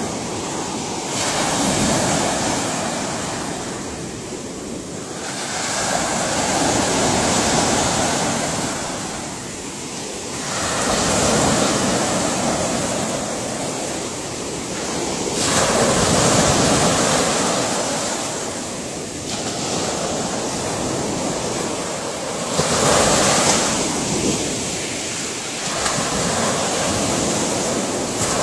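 Ocean surf: waves breaking and washing ashore, the rush of water swelling and ebbing every four to five seconds.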